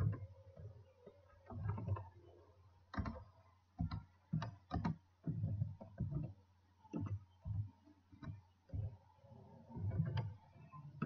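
Computer keyboard typing: irregular keystrokes come in short runs with brief pauses, over a faint steady hum.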